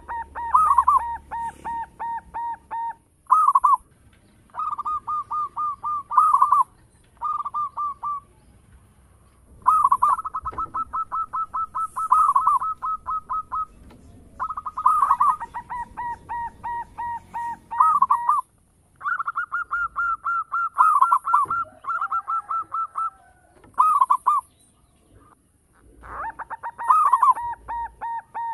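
Zebra dove (local perkutut) singing: phrases of quick, staccato cooing notes, about eight a second, each phrase lasting a few seconds and ending on a louder note, with short pauses between phrases.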